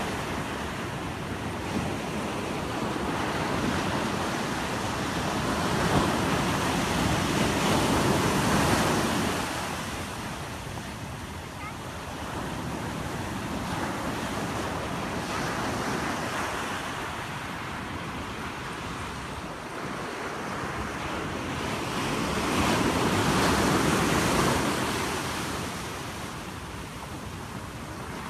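Ocean surf breaking and washing up the beach in a continuous roar of white water. It swells to two big surges, one several seconds in and another near the end, and eases between them.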